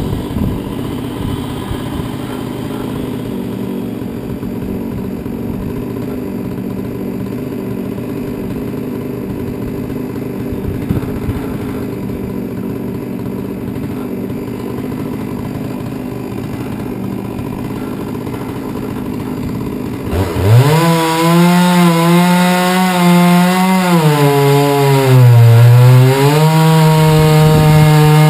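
Modified Huztl MS660-clone 99cc two-stroke chainsaw on a Granberg 36-inch chainsaw mill, running at low speed and then, about two-thirds in, opening up to full throttle with a sudden jump in loudness. Its pitch sags briefly and settles lower and steady as the saw loads in the cut.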